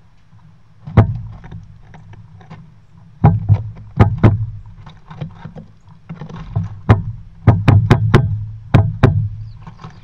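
Small birds, a dark-eyed junco and a tufted titmouse, hopping, landing and pecking on a wooden tray feeder heaped with sunflower seed right by the microphone: irregular sharp knocks and taps, each with a dull thud. They start about a second in and come thick and fast in the second half.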